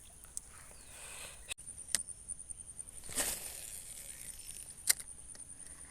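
A steady, high, pulsing insect trill, with a few sharp clicks and a brief rushing, splash-like noise about three seconds in.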